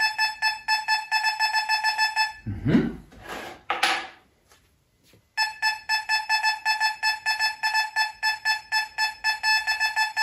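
Fisher F44 metal detector giving its target tone for an aluminium test piece passed over the coil: rapid, even beeps at one mid pitch, about four a second. The beeping stops about two seconds in and, after a short pause with a brief rustle, starts again about five seconds in.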